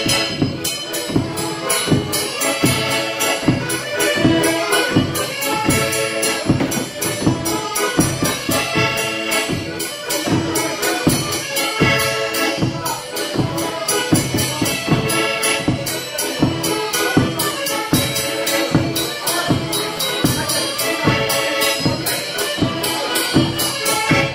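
Polish village folk band playing a dance tune: fiddle and Soprani piano accordion over a baraban bass drum with a cymbal mounted on it, struck on a steady beat.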